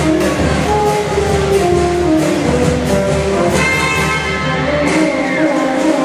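Brass band playing a marinera norteña: brass melody over steady percussion beats.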